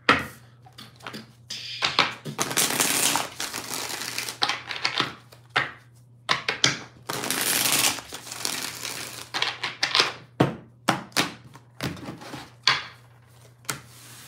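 A deck of tarot cards being shuffled by hand: a run of quick card flicks and slaps, with two longer stretches of continuous card noise about two and seven seconds in.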